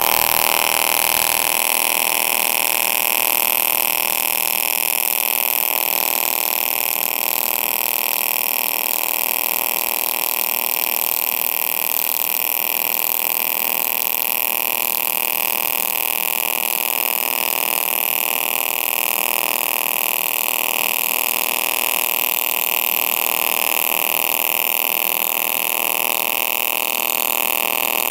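AC TIG welding arc on aluminium from an HTP Independence 210, square-wave output with the balance set to 65% electrode negative: a steady buzz with a hiss.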